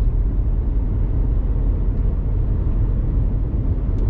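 Steady low rumble of a lorry's diesel engine and road noise, heard inside the cab while driving at road speed.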